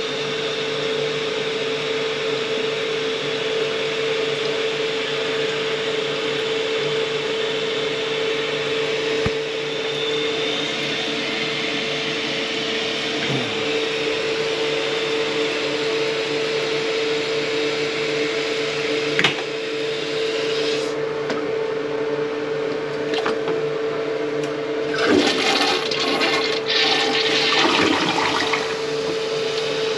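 Water rushing in toilet plumbing over a steady motor hum, with a click partway through and more broken, gurgling sounds near the end.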